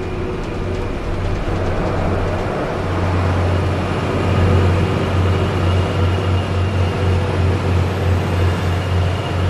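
Heavy 1955 Peterbilt 281 truck's diesel engine running loud and steady under load, a deep hum that grows louder over the first few seconds.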